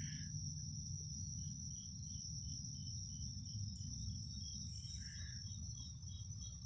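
Night insects calling, crickets by their sound: a steady high-pitched trill with a regular chirp of about three pulses a second over it, and a low rumble beneath.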